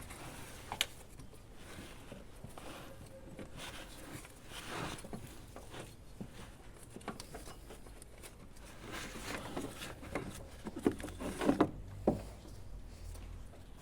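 Scattered clicks, rustling and light knocks from hand tools and engine parts being handled, with a cluster of sharper knocks near the end.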